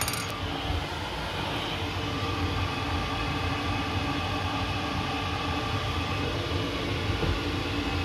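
LPG-fired Worcester Ri condensing boiler running steadily at full rate during combustion setup: an even rush of fan and burner with a few steady hum tones underneath.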